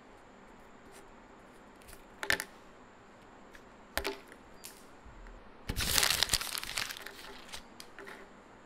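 A pen tapping onto a sheet of paper on a wooden table twice, dotting exclamation marks. Then, about six seconds in, the sheet of lined paper is crumpled up with a loud rustle that lasts about a second and trails off.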